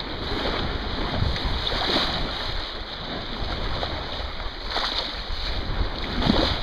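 Sea water rushing and sloshing along a moving boat's hull, with wind buffeting the microphone. A few louder splashes rise out of the wash, about two seconds in, near five seconds and just before the end.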